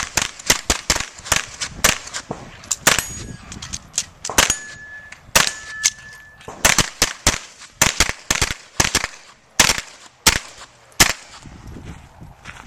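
9mm pistol-caliber carbine firing quick strings of shots, two to four a second with short pauses, with hit steel targets ringing in the middle. The shots thin out near the end.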